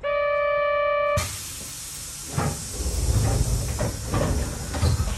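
Inside a Nose Electric Railway 1700 series car: a departure buzzer sounds steadily for about a second, then a loud hiss of compressed air starts suddenly and runs on, with several low thumps, as the pneumatic doors close before the train departs.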